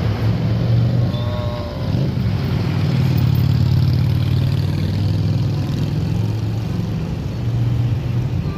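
Diesel engine of an intercity bus running as it drives past close by: a steady low drone that swells about three to five seconds in.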